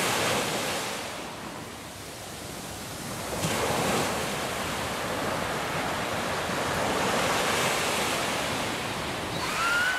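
Sea surf washing onto a sandy beach, a steady rush that dips and then swells again about three and a half seconds in. A voice calls out near the end.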